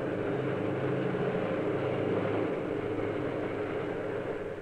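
Diesel-electric locomotive engine running with a steady drone; a lower note in it drops away about halfway through.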